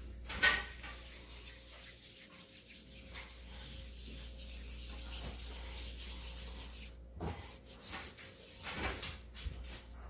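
Floured hands rubbing and working sticky yeast dough out of a glass bowl, with a sharp knock about half a second in and a few scraping strokes near the end.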